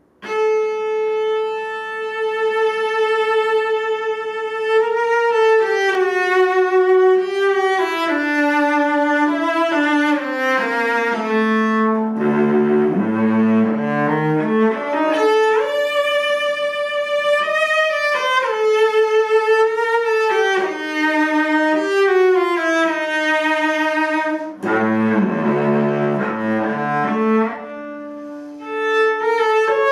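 Unaccompanied cello played with the bow. It opens with a long held note, then moves through falling phrases, with passages of low notes a third of the way in and again near the end.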